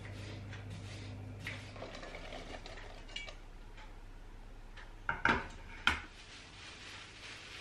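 Stainless-steel colander and saucepan clanking as sliced apples are tipped into the pan and the colander is set down: three sharp metal knocks a little past five seconds in, after a few light knife taps on a board.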